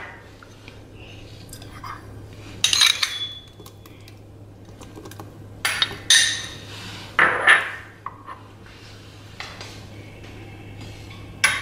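Steel spoon and glass bowls clinking and scraping as diced melon and grapes are tipped and spooned into a glass bowl of custard: a handful of separate short clatters.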